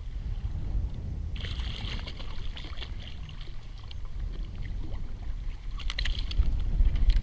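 Wind buffeting the microphone over water sloshing against a kayak, with a hiss that comes in about a second and a half in and lasts a few seconds, and a few sharp clicks and knocks near the end.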